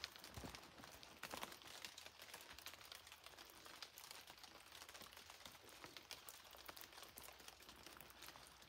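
Near silence, with a few soft, scattered footsteps of a hiker on a damp dirt trail.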